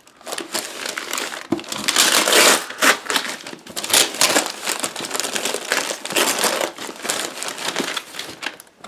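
Brown paper parcel wrapping being torn off and crumpled by hand around a cardboard box: uneven rustling, crackling and ripping, loudest about two seconds in.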